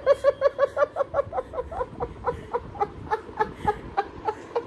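A long fit of laughter: a rapid run of high-pitched 'ha' pulses, about five a second at first, slowing slightly and fading until it stops near the end.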